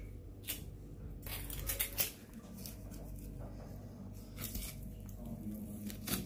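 Food being handled and cut by hand: a scatter of short sharp clicks and wet squishing over a low steady hum.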